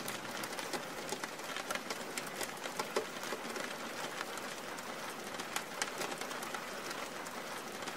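Faint background ambience: a steady hiss scattered with many small crackles and ticks.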